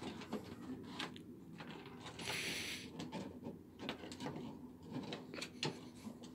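A West Highland white terrier hunting for kibble: scattered light clicks and taps as it moves and sniffs about, with one short, sharp blast of breath through the nose about two seconds in.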